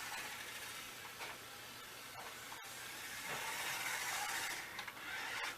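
Small electric motor of a toy remote-control car whirring as the car drives, with a steady hiss that gets louder about three seconds in.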